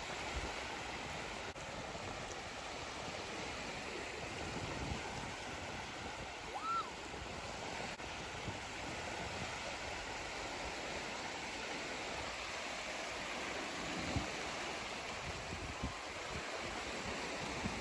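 Sea surf washing ashore as a steady rush of water noise, with a few faint low thumps and one brief high chirp about seven seconds in.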